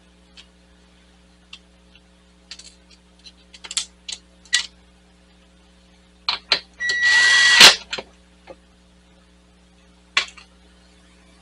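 Light clicks and clatters of fasteners and tools being handled. About six seconds in, a cordless drill runs in two short blips and then one steady burst of under a second as it drives a screw into the inner fender liner. One sharp clack near the end.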